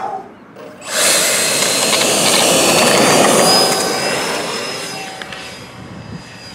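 A 90 mm electric ducted fan on a 6S battery, powering an RC glider, spools up abruptly about a second in: a loud, jet-like rush with a thin high whine. It then fades over the last few seconds as the model takes off and climbs away.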